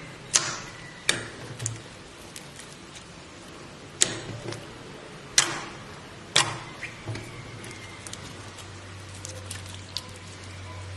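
Slime being pressed and worked by hand, giving sharp, irregular pops and clicks, about six loud ones with softer crackles between.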